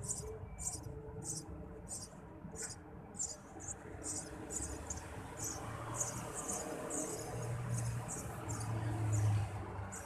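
Eurasian tree sparrow nestlings begging in the nest: thin, high chirps repeated about twice a second, coming thicker from about halfway through. A low rumble builds under them in the second half.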